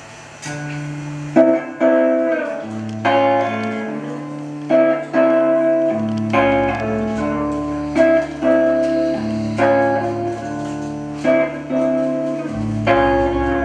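Instrumental band music: guitar chords ringing over a bass line. The chords change about once a second, starting about half a second in.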